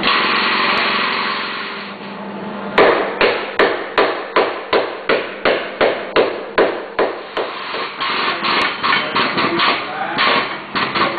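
Hammer blows on the steel body of a car being straightened on a frame machine: a steady run of strikes about three a second, turning into quicker, lighter taps after about eight seconds. A steady hiss fills the first couple of seconds before the hammering starts.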